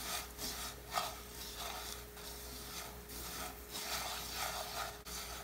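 A spatula stirring dry cassava-flour farofa in a frying pan: repeated scraping strokes, about two a second, the flour rasping against the pan as it toasts in butter.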